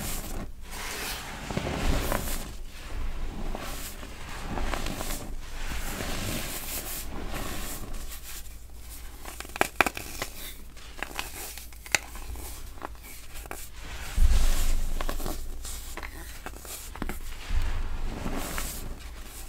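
Hands squeezing and crushing clumps of packed baking soda, a continuous dry crunching and crackling of the powder. A few sharp crackles come near the middle, and two deeper thuds follow in the second half.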